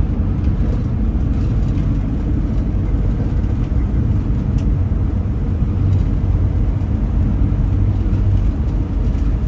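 Motorhome driving on a highway: a steady low rumble of road and engine noise.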